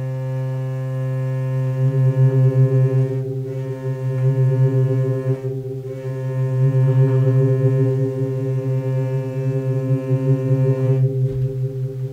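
Hyper-hurdy-gurdy, a hurdy-gurdy augmented with sensors and digital sound processing, played with the crank turning: a steady low drone with a melody over it. A fast pulsing comes into the sound about a second and a half in, and the melody stops shortly before the end, leaving the drone fading.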